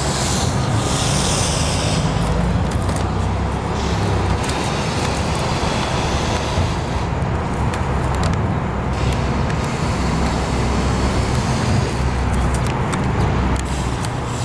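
Steady road traffic noise, a continuous rumble of passing cars with no single event standing out.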